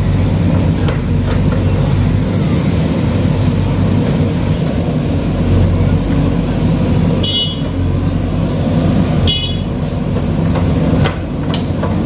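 JCB 3DX backhoe loader's diesel engine running steadily under load while the backhoe digs. Two short high-pitched blips sound about two seconds apart past the middle, and a few sharp knocks near the end.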